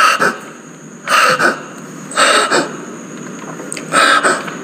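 A man breathing heavily close to the microphone: four sharp, noisy breaths about a second apart, with a slightly longer pause before the last.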